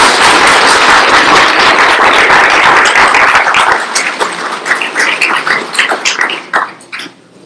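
Audience applauding: dense at first, thinning about four seconds in to scattered separate claps that die away near the end.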